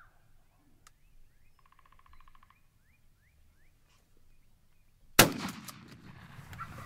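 A single shotgun blast about five seconds in, fired at a strutting wild turkey. After it the shot turkey flops and beats its wings in the grass. Faint bird calls come before the shot.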